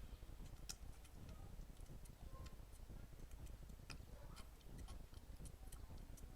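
Baby goats eating porridge: faint, irregular clicks from their mouths, over a low steady rumble.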